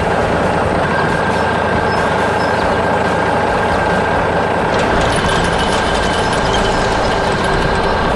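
Heavy construction machinery engines running steadily, with a steady high whine over the rumble; a light high clatter joins about five seconds in.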